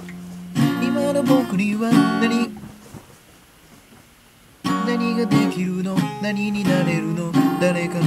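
Acoustic guitar being strummed: a chord rings out, then comes a run of strummed chords, a soft lull of about two seconds, and the strumming starts up again.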